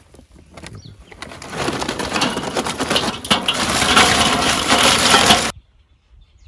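Charcoal briquettes poured from a paper bag, clattering onto the steel grate and charcoal baskets of a Weber kettle grill. The clatter builds over about a second, runs dense and loud, and stops abruptly about a second before the end.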